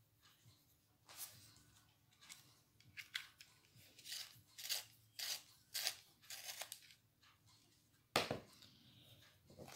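Coloured pencil being turned in a pencil sharpener: a run of short rasping twists, then a single sharp knock near the end.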